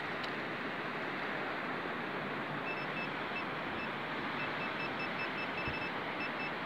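Handheld metal-detecting pinpointer beeping in quick short spurts as it is pushed through the dug sand, signalling metal close to its tip. The beeps start a few seconds in, over a steady hiss of wind and surf.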